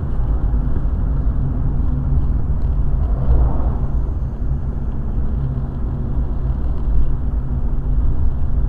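Car driving at highway speed, heard from inside the cabin: a steady, low engine and tyre noise.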